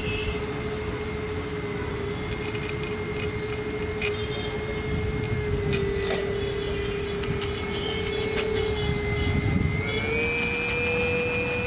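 Small electric motor spinning the propeller of a homemade air boat as it runs across the water, a steady whine that rises a little in pitch about ten seconds in.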